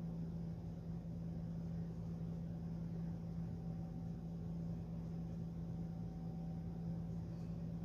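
Steady low hum with a faint even hiss, unchanging throughout.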